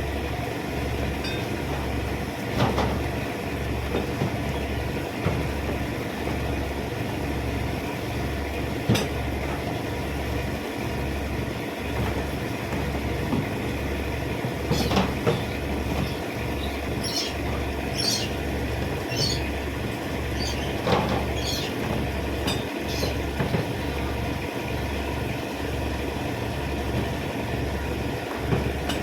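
A steady low mechanical throb that pulses about once a second. A few short, high chirps come in the middle.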